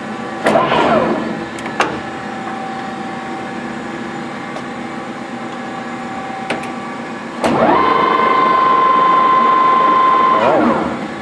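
Monarch engine lathe running with a steady gear whine. A brief pitch sweep comes near the start and a click about two seconds in. About seven seconds in, a louder whine rises, holds a steady high tone for about three seconds, then winds down.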